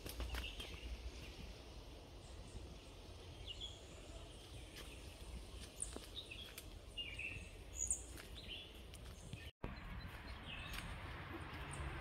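Forest ambience with scattered short bird chirps, a few each second at times, over a steady low rumble. The sound cuts out for an instant a little past halfway.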